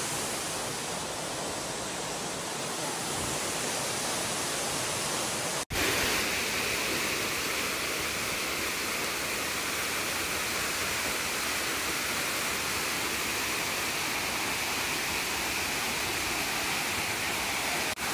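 Waterfall cascading over rocks into a pool: a steady rush of falling water. It cuts out for an instant about six seconds in.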